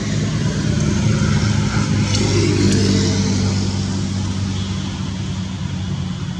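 A motor engine running with a steady low hum, swelling over the first couple of seconds and easing off toward the end. Two short clicks come a little past two seconds in.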